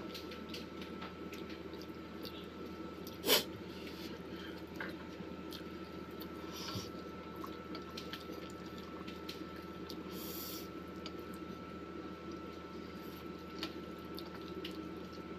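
Close-up eating of spicy instant ramen noodles: soft chewing and wet mouth sounds with scattered light clicks of chopsticks on a stainless steel bowl. One sharp click about three seconds in, over a faint steady hum.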